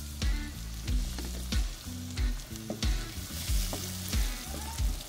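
Sliced onions, chopped tomato and green chillies sizzling as they fry in oil in a metal pot, stirred with a wooden spoon. Background music runs underneath, with a steady beat of about two thumps a second.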